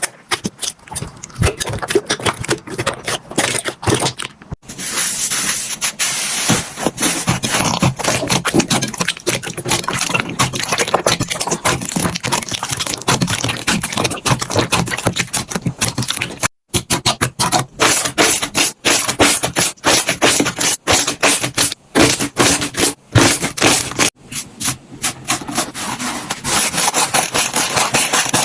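Slime being squeezed, stretched and poked by hand: a dense run of sticky clicks, crackles and pops. It breaks off briefly twice, about four and a half seconds in and again about halfway through.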